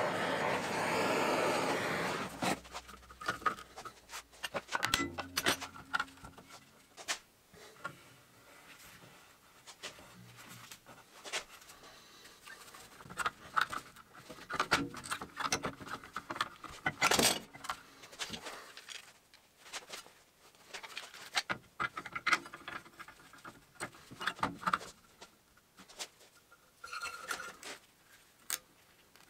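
Compressed-air blow gun hissing for the first couple of seconds, then scattered metal clicks, clinks and knocks from hand-reassembling a CVTech CVT driven clutch held in bar clamps: the moving sheave being turned, the cam plate seated and a snap ring fitted.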